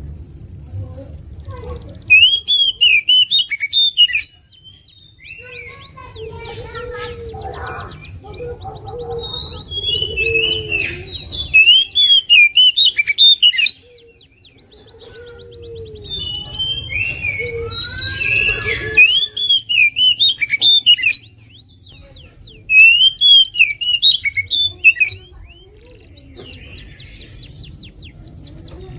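Oriental magpie-robin singing in loud bursts of rapid, varied whistled phrases, four main bursts, with fast high trills and softer warbling in between.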